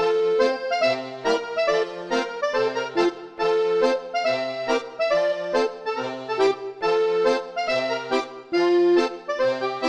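Instrumental music: a bright reed-like melody over a bass-and-chord accompaniment that alternates in an even, bouncing rhythm.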